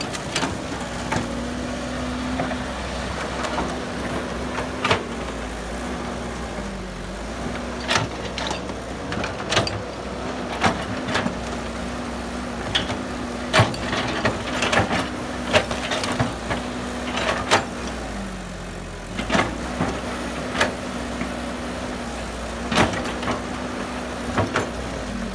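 A heavy diesel engine running steadily, its speed dipping briefly twice, with sharp metallic clanks and knocks at irregular intervals.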